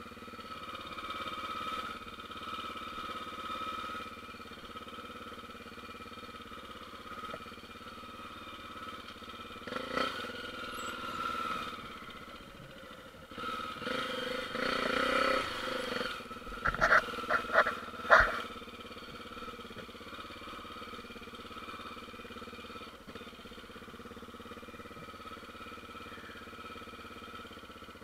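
Honda single-cylinder four-stroke trail motorcycle engine running steadily at low speed, swelling louder for a few seconds around the middle, with a handful of sharp knocks shortly after.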